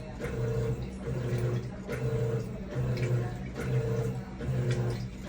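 Electrolux 10.5 kg top-loading washing machine agitating: the motor hum switches back and forth in pitch about every half second as the drive reverses direction, with water sloshing in the tub.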